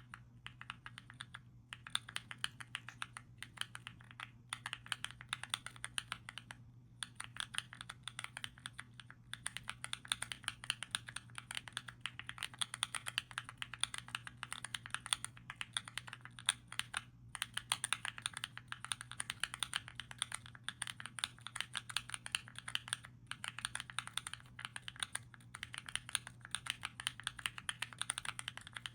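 Fast typing on mechanical keyboard switches (Epomaker Zebra switches on a KEEBS Pad keyboard fidget): a rapid, continuous run of soft key clacks, with short pauses a few times. A faint steady low hum lies underneath.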